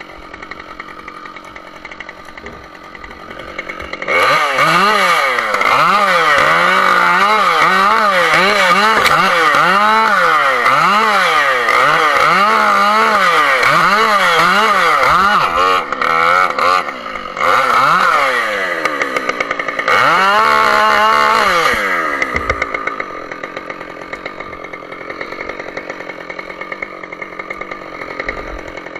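Husqvarna two-stroke chainsaw idling, then opened up about four seconds in and run at full throttle while delimbing a felled tree, its engine speed dipping and recovering again and again as the chain bites into the branches. It drops briefly off throttle twice along the way and falls back to idle for the last several seconds.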